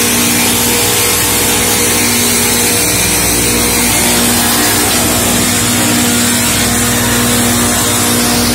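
LogRipper-200 one-pass sawmill running at speed: a loud, steady machine noise with an even hum from its spinning circular saw blades and drive, unchanging throughout.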